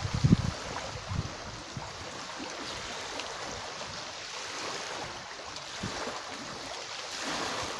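Open water washing and lapping in a steady, even rush, with a few low thumps in the first half-second.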